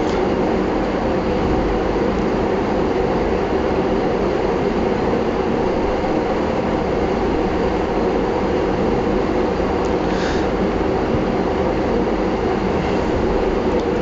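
Steady, even mechanical drone, like a fan or motor hum, that does not change throughout. Two brief faint hisses sound about ten seconds in and near the end.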